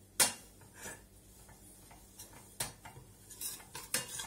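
Metal spoon stirring a thick flour-and-semolina paste toasting in oil in a small stainless-steel pot, with a few sharp clinks and scrapes of the spoon against the pot, the loudest just after the start.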